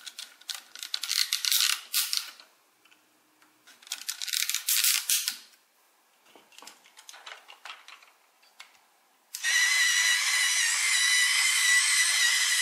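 Plastic toy building blocks clicking and rattling in short bursts as pieces are snapped on and the model is handled. About three-quarters of the way in, a loud steady high sound starts suddenly and keeps going.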